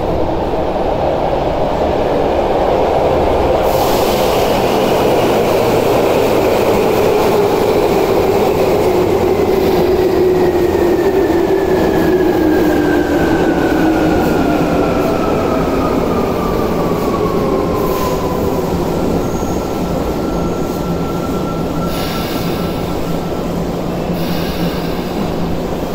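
Tokyu 8500 series electric commuter train running into an underground platform and braking to a stop, its motor whine falling steadily in pitch as it slows. A short high hiss comes near the end as it stops.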